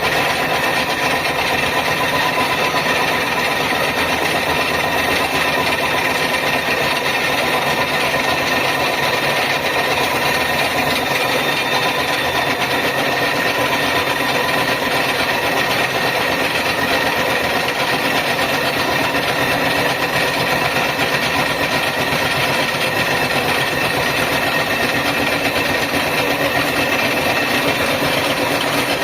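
Facing and centering machine running: a steady, unchanging machine noise with a constant whine on top.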